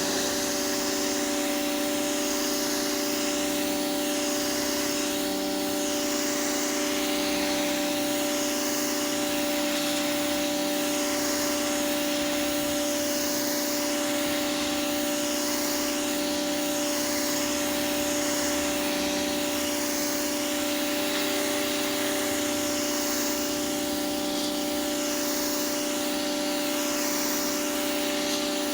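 High-pressure washer running steadily: a constant hum from its motor and pump under the hiss of the water jet on pavement, the hiss swelling and fading as the jet moves.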